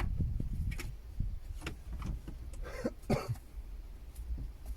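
Plastic interior trim panel of a car being pried loose: scattered clicks and knocks from the clips and panel, with two short rasping noises about three seconds in.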